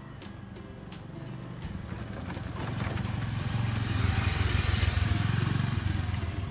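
A motor vehicle's engine approaching and passing: a low rumble that grows louder from about two seconds in, is loudest past the middle, then fades.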